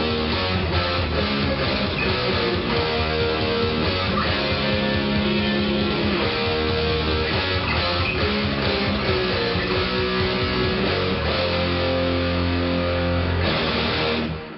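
Electric guitar playing a heavy metal song with drums and bass behind it. The music stops abruptly near the end.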